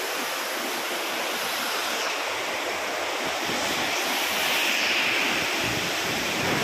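Waterfall cascading over rocks: a steady rushing of white water.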